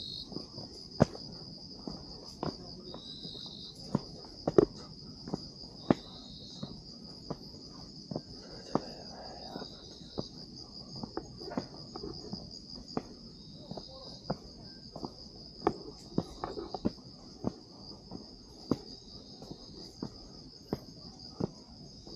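Night insects trilling steadily on one high pitch, with a second, lower chirp repeating every three seconds or so. Footsteps on a trail sound as sharp scattered taps over the top.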